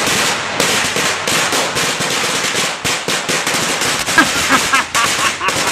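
Firecrackers going off in a rapid, dense string of bangs and crackles that starts suddenly and keeps going without a break.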